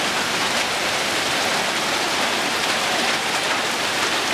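Heavy rain pouring down steadily onto grass and waterlogged ground.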